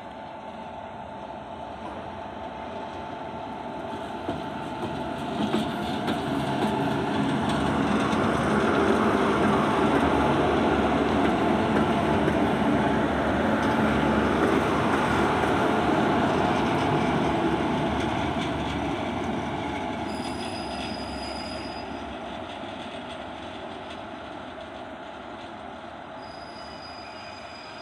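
Twin WAG-7 electric locomotives running light past the listener: the wheels rumble and clatter on the rails under the locomotives' steady hum. The sound grows louder to a peak about a third of the way in, holds, then fades as they move away. Brief thin high squeals come twice near the end.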